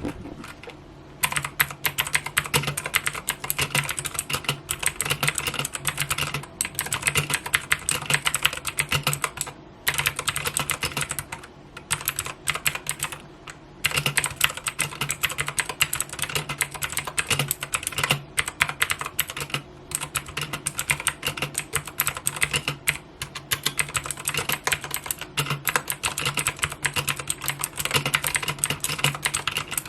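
Typing on an Ajazz AK33 mechanical keyboard with clicky blue switches: a fast, dense run of key clicks starting about a second in, broken by a few brief pauses.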